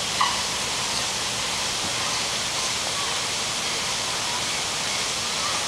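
Steady, even rush of water, bright and hissing, with no change in level.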